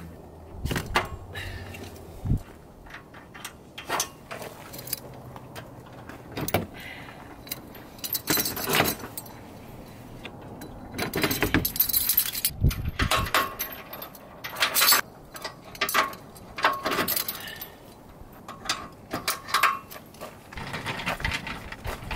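Metal trailer-hitch hardware being handled: a run of irregular metallic clinks, jangles and clanks, busiest in the second half, as the camping trailer is being unhitched from the car.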